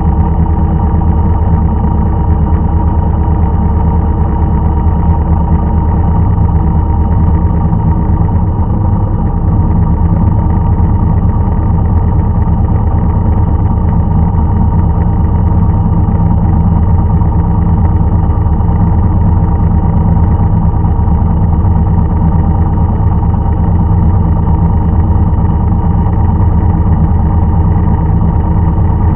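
An engine on farm machinery running steadily at an even speed, loud, with a constant hum that does not change.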